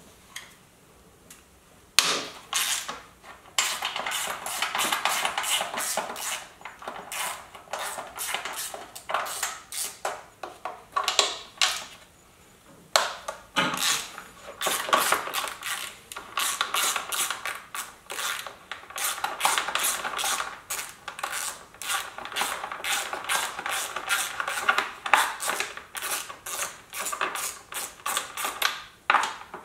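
Hand ratchet clicking in long, rapid runs as 7/16 breather bolts are backed out of the cylinder heads, with a short pause a little under halfway through.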